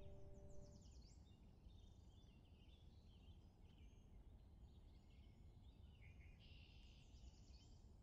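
Near silence, with faint high-pitched bird chirps scattered throughout; two held tones die away just under a second in.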